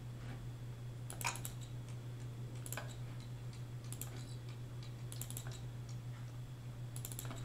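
Quiet clicking at a computer, in five short clusters of a few clicks each, spaced about a second and a half apart, over a steady low hum.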